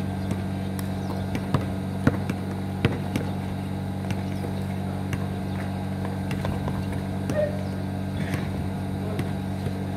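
Basketball bouncing on an asphalt court in irregular sharp knocks, the loudest about two and three seconds in, over a steady low mechanical hum.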